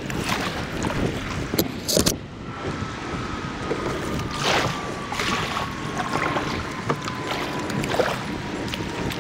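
Kayak paddle strokes splashing in calm river water, a separate splash every second or two over a steady background of water and air noise.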